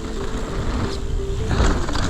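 Background music with a stepping melody, over the low rumble and rattle of a mountain bike riding down a dirt trail.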